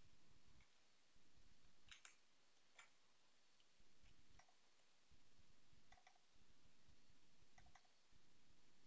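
Faint, scattered clicks of a computer mouse, about five of them a second or so apart, over near-silent room tone.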